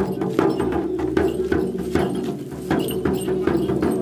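Large hand-held frame drum beaten at a steady pulse of about two to three strokes a second, with a continuous low hum beneath the beats.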